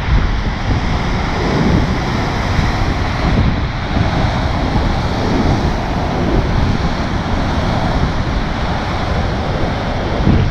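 Rough sea with waves breaking and churning against rocks and concrete breakwater blocks, under strong wind rumbling on the microphone. The noise is steady and loud throughout.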